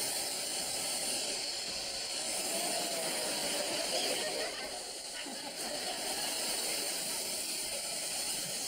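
Electric hairdryer running with a steady blowing hiss, heat-shrinking plastic sheeting taped over a window.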